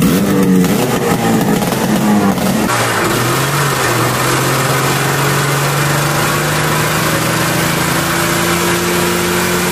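1973 John Deere JDX8 snowmobile's two-stroke engine running loud through a straight pipe, just after starting. It runs unevenly for the first few seconds, then about three seconds in settles into a steady run whose pitch slowly rises.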